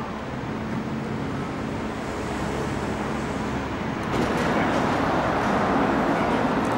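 City street traffic noise: a steady hum of passing vehicles, which grows louder about four seconds in.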